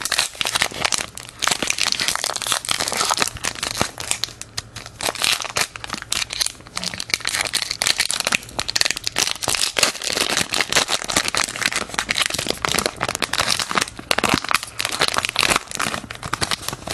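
Foil wrappers of Pokémon trading card booster packs crinkling and crackling with many small snaps as they are handled and torn open by hand.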